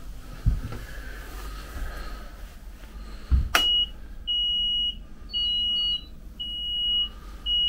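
Helm console warning buzzer on a motor yacht: a click about three and a half seconds in, then a single high beep repeating about once a second, each beep lasting about half a second.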